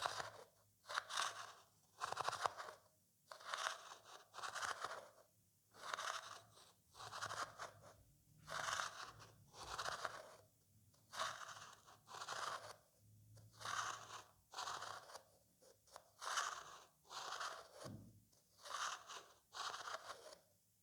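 A metal spoon scraping over a vase in a steady rhythm of short rasping strokes, each under a second with a brief gap between.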